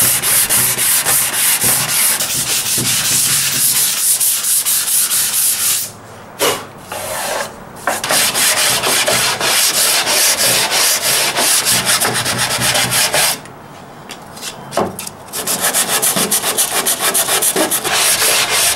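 Sandpaper on a hand-held sanding block rubbing back and forth over a flat maple board in quick strokes, with two short breaks about six and thirteen seconds in.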